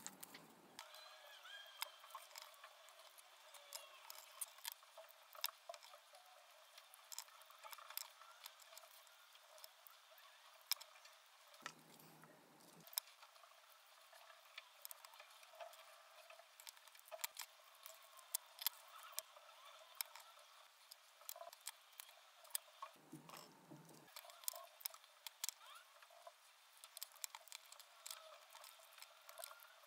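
Faint, scattered clicks and light taps of wooden popsicle sticks being handled, fitted together and set down on a tabletop.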